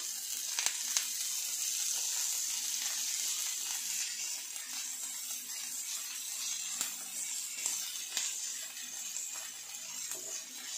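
Sliced onions, curry leaves, green chillies, ginger and garlic sizzling steadily in hot coconut oil in a nonstick frying pan, with light scrapes and taps of a wooden spatula as they are stirred.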